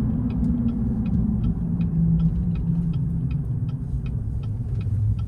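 Inside a moving vehicle: steady low rumble of the engine and road noise while driving, with faint regular ticking about four times a second.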